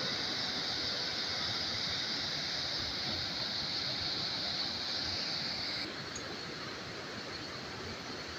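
Steady rushing hiss of water pouring down a rocky cascade. About six seconds in it switches to the softer, lower rush of a muddy brown river flowing after a storm.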